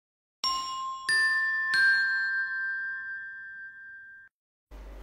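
A three-note chime sting: a low note, a higher one, then one in between, struck about two-thirds of a second apart and left ringing together, fading until cut off suddenly. A faint steady hum of room noise starts near the end.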